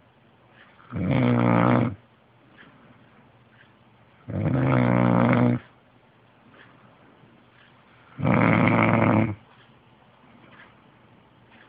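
A man snoring in his sleep: three loud, low-pitched snores, each about a second long, coming about every three and a half seconds with quiet breathing gaps between.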